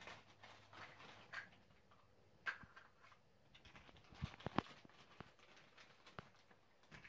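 Faint rustling of a clear plastic bag and clicking of small plastic toy parts being handled, with a few sharper clicks about two and a half seconds in and a cluster of louder clicks around four and a half seconds in.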